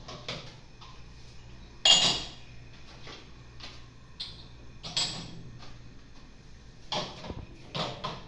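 Kitchenware clattering at a sink and dish rack: a loud clank about two seconds in, then several lighter knocks and clinks as dishes and utensils are handled.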